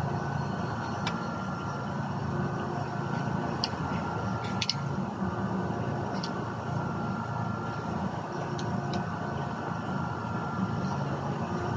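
Steady low mechanical rumble, like a motor running, with a few faint light clicks scattered through it.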